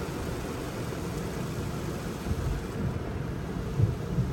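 Automatic car wash heard from inside the car: water spraying over the windshield over a steady rumble, with a few dull thuds in the second half as the wash brushes start slapping against the car.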